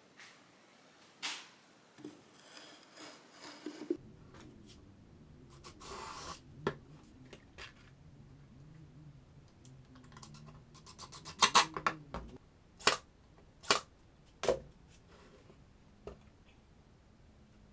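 Scattered clicks, taps and a few sharp knocks of hand work with small pieces of wood, with a brief rustle about six seconds in and a quick run of clicks near the middle.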